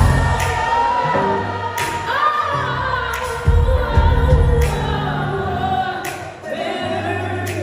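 Live soul band with a woman singing long held notes into a microphone over bass and percussion.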